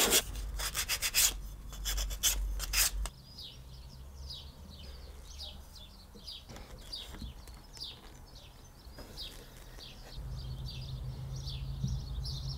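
Hand sanding: the edge of a wooden strip rubbed in quick back-and-forth strokes on a sheet of sandpaper lying flat on the workbench, for about the first three seconds. After that it is quieter, with small birds chirping repeatedly in the background.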